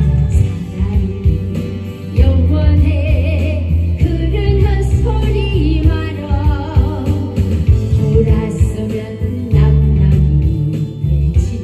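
A woman singing a Korean trot song into a handheld microphone, amplified over a backing track with a strong bass line.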